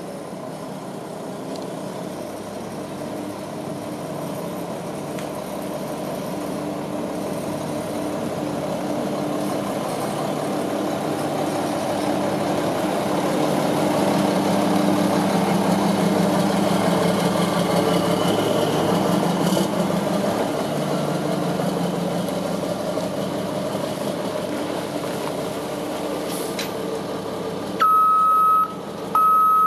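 2003 Mack CV713 dump truck's diesel engine running as the truck drives up and past, growing louder toward the middle and then easing off. Near the end its backup alarm starts beeping, the truck going into reverse.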